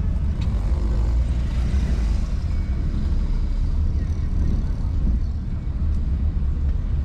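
Steady low rumble of a car driving slowly along a city street: engine and road noise.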